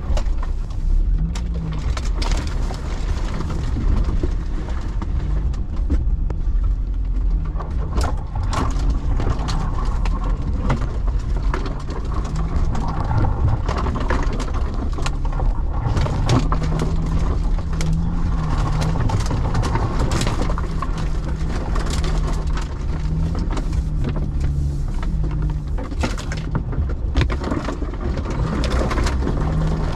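Off-road vehicle engine running at low speed on a rough trail, its pitch rising and falling a little with the throttle. Frequent short knocks and scrapes sound over it throughout.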